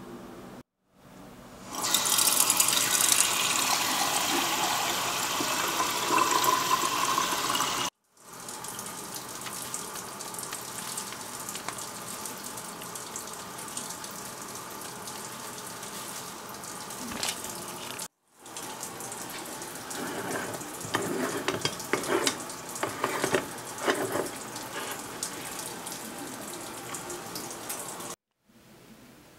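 Tap water running hard for about six seconds. It is followed by a softer stretch of rustling as ground coffee is poured from a foil bag into the filter basket of a Bialetti Moka stovetop espresso pot, then scattered clicks and scrapes. Short gaps of silence separate the three parts.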